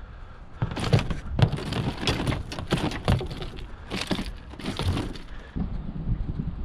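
Rapid, irregular knocks and clatter on the aluminum hull and seat of a jon boat as gear and a caught northern pike are handled, dying down about five seconds in, over a low wind rumble on the microphone.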